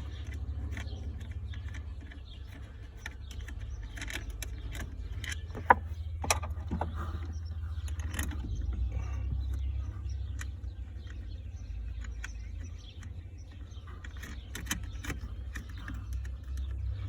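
Scattered metallic clicks and clanks of tools and car parts being handled, with two sharp knocks about six seconds in, over a steady low rumble.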